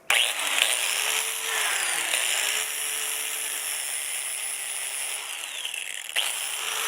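Angle grinder with an 80-grit flap disc grinding weld down on a steel motorcycle frame. It starts abruptly, and the motor's pitch sags and recovers as the disc is pressed into the metal. The grinding is briefly interrupted about six seconds in.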